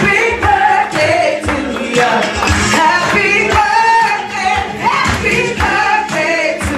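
A woman singing into a microphone over backing music with a steady beat.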